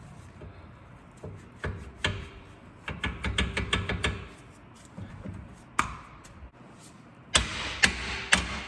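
Irregular taps and knocks on a work light that has gone out, to get it to come back on: a run of quick taps about three to four seconds in, and sharper, louder knocks near the end.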